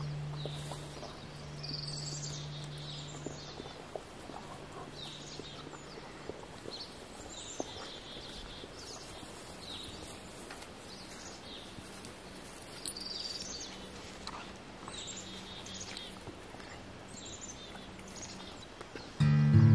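Small forest birds chirping over and over, short high calls that sweep downward, against faint outdoor ambience. Acoustic guitar music starts loudly about a second before the end.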